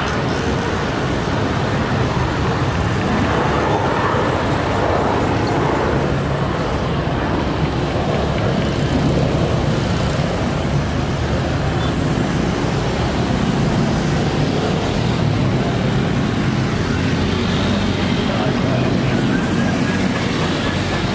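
Boeing 737-900ER's CFM56-7B turbofan engines at takeoff thrust as the jet accelerates along the runway: a steady, broad rush of jet noise.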